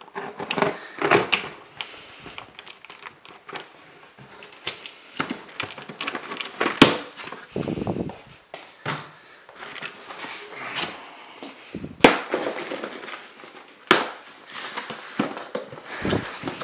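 Cardboard box being opened and handled: taped flaps pulled apart and cardboard rustled, a run of irregular crackles and rustles with a few sharper knocks.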